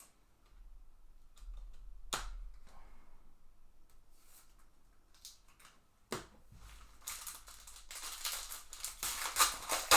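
Trading-card pack being handled: a couple of sharp clicks, then the foil wrapper of a baseball card pack crackling as it is torn open for the last few seconds.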